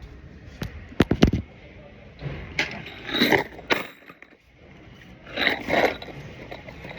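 Handling clatter from a box of metal screws: a few sharp knocks about a second in, then the rattle and scrape of loose screws being shaken and moved.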